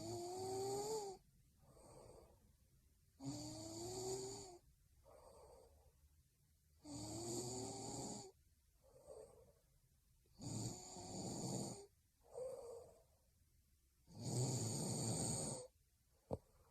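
A sleeping young woman snoring: five loud snores about every three and a half seconds, the first three with a rising pitched tone, each followed by a softer sound. A single click near the end.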